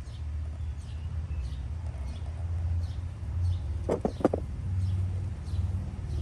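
Outdoor ambience: faint high bird chirps repeating about twice a second over a steady low rumble, with a short two-part call about four seconds in.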